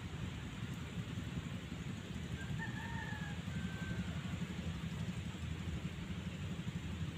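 Steady low rumble, with a rooster crowing once, faint and brief, about two and a half seconds in.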